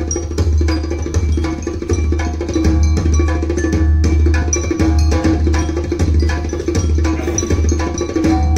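Instrumental music with fast, even percussion over a steady low bass.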